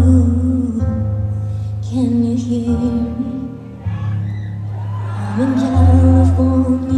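Live concert music over a PA: a slow ballad with a female voice singing long held notes over a deep bass.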